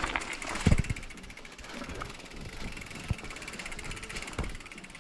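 Mountain bike ridden along a dirt trail: continuous tyre and drivetrain noise with wind on the microphone, and a few thumps over bumps, the loudest less than a second in.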